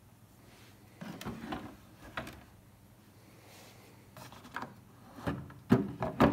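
Hard plastic clicks and knocks: a Makita MakPac case's latches and lid being opened, then a Makita XGT 40V battery clacking against the plastic holder in the lid as it is handled in its slot. A few clicks come a second or two in, and a quick run of louder, sharper clacks comes near the end.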